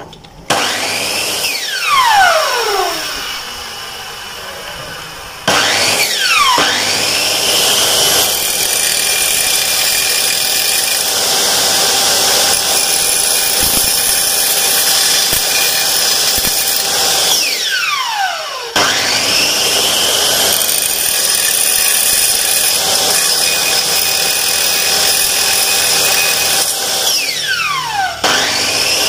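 Miter saw with an abrasive-toothed blade cutting notches into an aluminium window profile: the motor starts about half a second in, again near 6 seconds and near 19 seconds, running with a loud metallic cutting noise. Between runs a falling whine is heard as the blade spins down.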